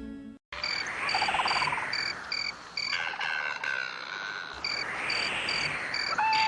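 Night-time nature ambience: crickets chirping in an even pulsing rhythm, about three chirps a second, with frogs croaking now and then, over a hiss that swells and fades twice.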